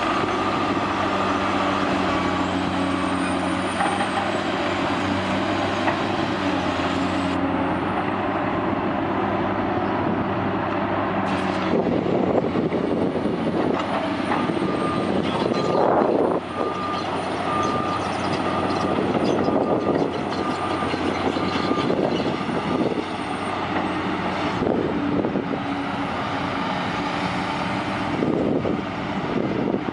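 Heavy diesel engines of a tracked excavator and a crawler dozer running under load during a mud recovery, a steady engine hum that turns rougher and noisier partway through.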